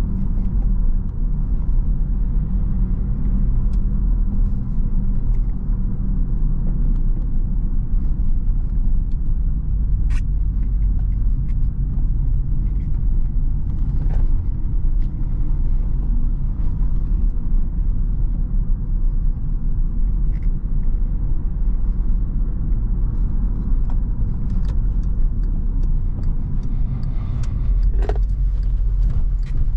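Cabin sound of a 2011 Skoda Octavia II with its 1.6-litre MPI four-cylinder petrol engine, driving: a steady low engine and road rumble, with a few faint clicks and knocks.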